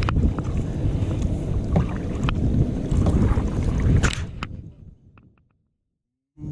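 Wind rumbling on the microphone aboard a canoe, with a few light knocks. A little past four seconds in, the sound fades out to dead silence for about a second, then comes back.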